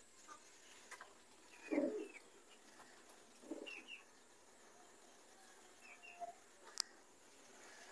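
Faint pigeon coos, about two seconds in and again a little later, with a few short high bird chirps in between. A single sharp click near the end.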